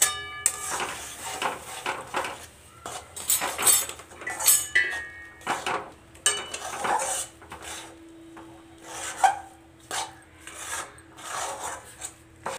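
Metal spatula scraping and knocking around an aluminium wok, stirring rice flour and hot water into a stiff dough for bhapa puli. Irregular rubbing scrapes, with a ringing metal clank at the start and a shorter ring about halfway.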